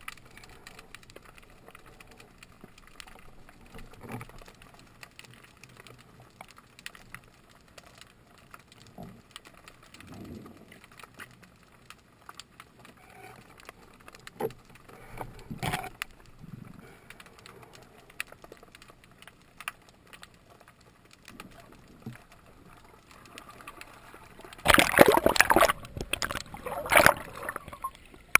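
Underwater sound picked up by a diving camera: faint scattered clicks and crackles, then about three seconds from the end a loud rush of bubbling, churning water as a white seabass is brought in against the diver.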